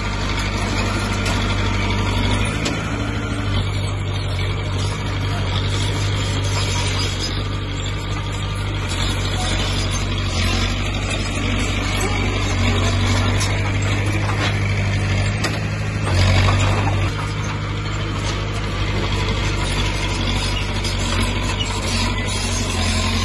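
Heavy diesel engine of earthmoving machinery running steadily, with a brief rise in level about sixteen seconds in.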